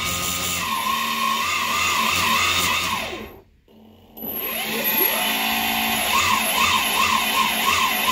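Two Turnigy SK3 4250 350 Kv brushless outrunner motors driving a Ripstik's wheels through toothed belts, running unloaded with the board upside down: a whine whose pitch rises and falls with quick throttle pulses. It winds down and stops a little over three seconds in, spins up again about a second later, pulses in pitch several times, and winds down near the end.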